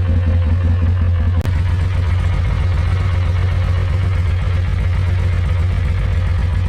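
Polaris RZR side-by-side engine running steadily with a deep low drone, broken by a momentary dip about a second and a half in.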